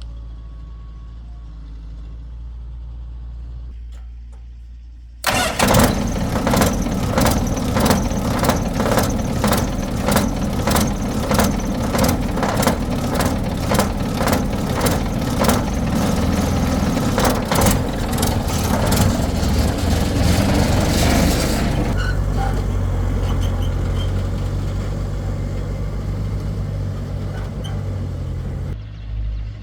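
A motor vehicle's engine runs low and steady. About five seconds in, a sudden loud clattering rattle starts over it and lasts some sixteen seconds, after which the engine runs on evenly.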